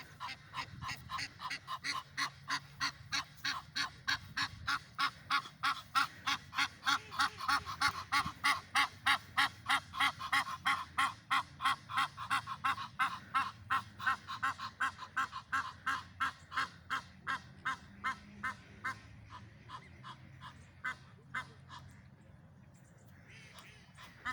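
Goose-like honking from a bird in a fast, very regular series of about three honks a second, growing louder through the first half and fading away near the end.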